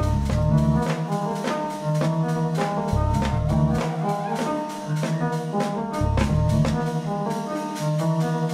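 Jazz trio playing live: keyboard, electric bass and drum kit. Regular drum hits run under held keyboard chords, and a low bass figure comes back about every three seconds.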